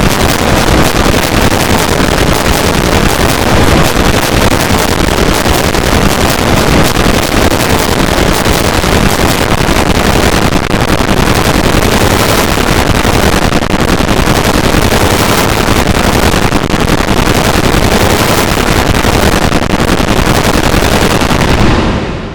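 An Android alarm tone layered and distorted over and over until it has become a loud, harsh wall of noise with no tune left in it. It fades out near the end.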